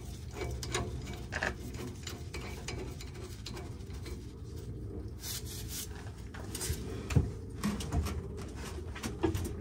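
Threaded black-iron steam pipe fitting being turned on its threads, with irregular metal-on-metal scraping and clicking and one sharper knock about seven seconds in.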